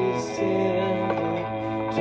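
Worship song being sung with instrumental accompaniment, a sustained melody that moves to a new note about half a second in.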